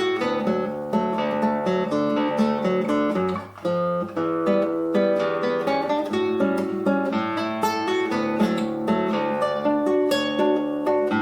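Solo classical guitar fingerpicking a lively run of plucked notes over a bass line, with a brief break about three and a half seconds in.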